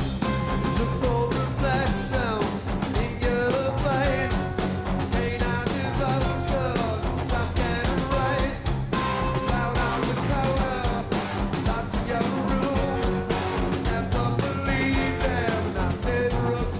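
Live rock band playing: electric guitar, bass and steady rock drumming, with a male lead vocal over it.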